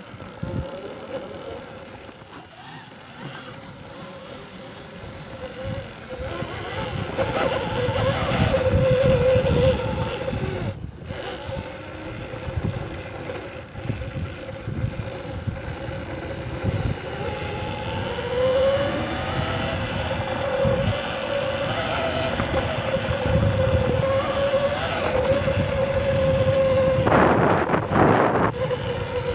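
Electric dirt bike motor running with a steady whine that climbs in pitch around two-thirds of the way through as the bike speeds up. Wind buffets the microphone, and there is a short burst of noise near the end.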